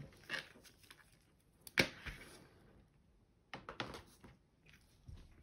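Light clicks and knocks of small hard plastic parts being handled and set down on a hard work surface: one sharp click about two seconds in, then a quick cluster of clicks a couple of seconds later.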